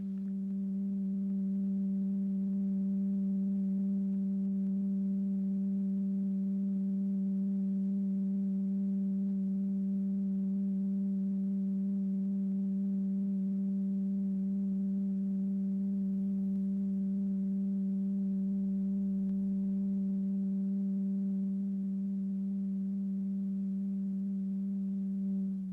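Steady electronic tone just under 200 Hz, with fainter overtones above it, held unchanged. This is the drive tone vibrating the powder-strewn diaphragm into its four-part flow pattern. It eases slightly softer over the last few seconds.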